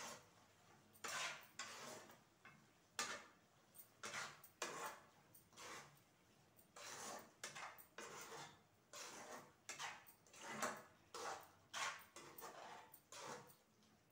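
Spatula scraping and stirring amaranth greens and tomato in a metal kadai: short, irregular scrapes, about one or two a second.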